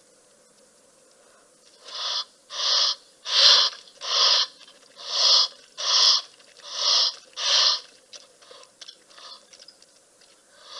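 An animal calling: a series of eight loud, hoarse calls in an even rhythm of about one and a half a second, starting about two seconds in, followed by fainter scattered calls and one more near the end.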